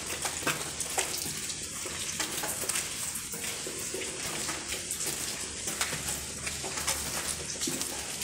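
Water dripping and pattering in a concrete tunnel: a steady crackle of many small, irregular ticks and taps.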